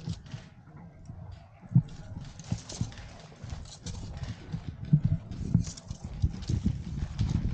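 Irregular knocks and scuffs from an airsoft gun and its gear being handled and shifted, picked up by a camera mounted on the gun. The first two seconds are quieter, and the knocks come more often after that.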